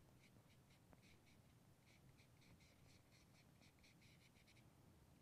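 Very faint scratchy strokes of a paintbrush working paint onto paper, several short dabs a second, stopping shortly before the end.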